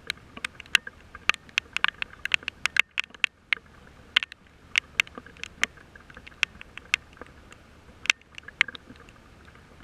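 Raindrops striking a surface close to the microphone: irregular sharp taps, several a second, over a faint steady hiss.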